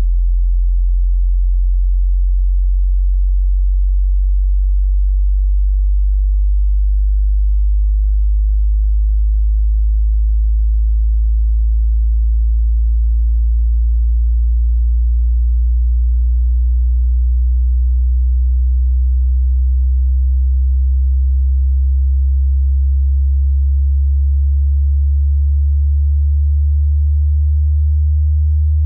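Pure sine test tone of a hearing test's frequency sweep, very low in pitch and held at a steady level, gliding slowly upward.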